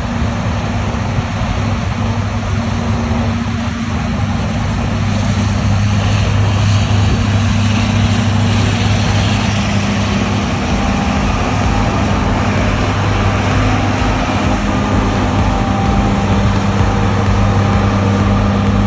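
John Deere S785 combine harvester running steadily while harvesting: a constant low engine drone with a dense rushing noise over it.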